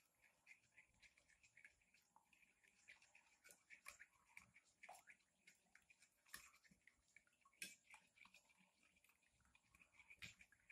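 Faint, rapid, irregular clicking and scraping of a spoon beating raw egg with seasoning and oil against a plate.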